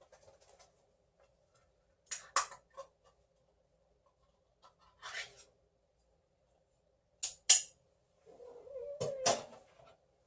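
A domestic cat calling in a wavering, drawn-out voice near the end, mixed with several sharp clicks and knocks and a short rustle earlier on.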